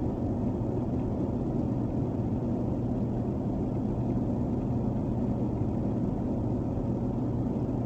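Steady road noise heard inside a vehicle's cab at highway speed: Treadwright Warden 265/75R16 tires running on a snow-covered road, with a steady low hum from the tires and drivetrain.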